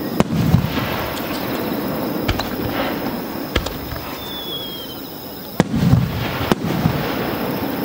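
Aerial firework shells bursting: five sharp bangs, the two loudest near the start and about two-thirds through, each followed by a low rumbling echo. A brief high whistle slides slightly downward midway.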